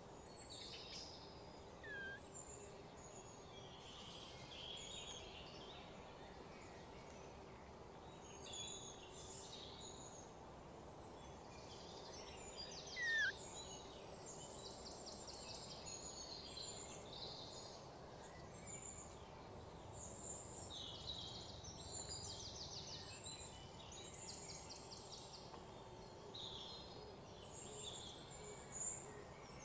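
Outdoor ambience of many birds chirping and trilling over a faint steady hum. Two brief rising squeaky calls cut through, one about two seconds in and a louder one about thirteen seconds in.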